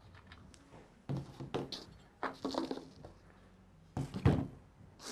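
Knocks and scrapes of a Stihl chainsaw's side cover being worked loose, pulled off and handled, in a few short clusters, the loudest knock about four seconds in.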